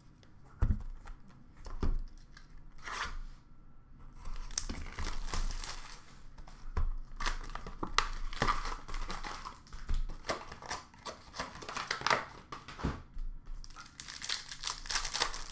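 Hockey card pack wrappers being torn open and crinkled by hand, in irregular rustling bursts. There are two sharp knocks in the first two seconds.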